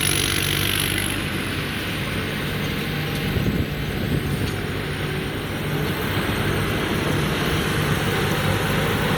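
Rice combine harvester (Somboonpattana build, 260-horsepower engine) running steadily while harvesting, its engine hum under a constant mechanical roar from the machinery.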